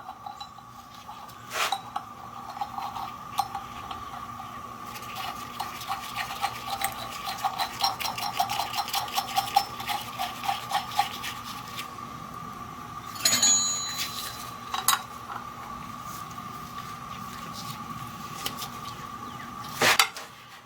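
Metal hand tools clinking, with a quick run of small clicks from about five to twelve seconds in, as a nut and washers are worked down a threaded rod to press a pulley onto a power steering pump shaft. A few sharper metal clanks stand out, one about thirteen seconds in ringing briefly.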